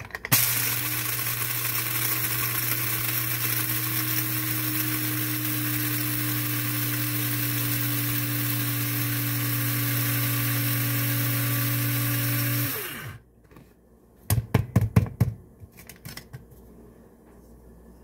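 Electric blade coffee grinder running steadily with a motor whine, grinding espresso beans to a fine grind; it cuts off about thirteen seconds in and spins down briefly. A quick cluster of sharp knocks follows a second or two later.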